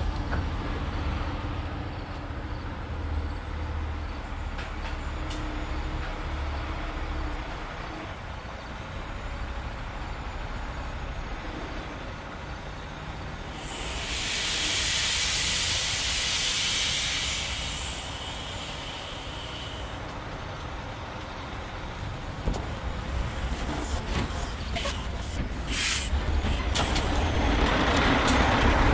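Loaded log truck's diesel engine running at low speed, with a long air-brake hiss lasting about four seconds midway. The engine grows louder over the last few seconds as the truck pulls in close.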